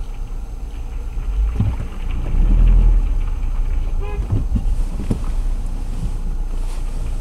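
Low, steady rumble of a car idling, heard from inside a car through a dashcam, swelling louder about two seconds in, with a few short clicks and knocks.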